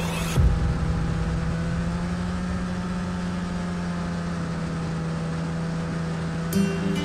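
Polaris snowmobile engine running at a steady cruising speed, a continuous drone, with a single thump about half a second in. Music comes in near the end.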